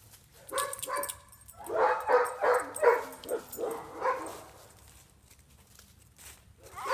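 A dog barking in a quick run of about eight barks, bunched in the first half and then stopping. This is reactive barking, a dog excited by the sight of another dog across the fence.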